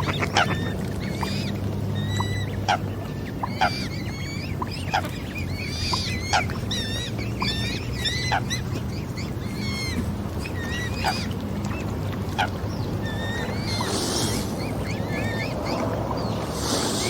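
Swans and other waterfowl calling, many short high calls over a steady low rumble.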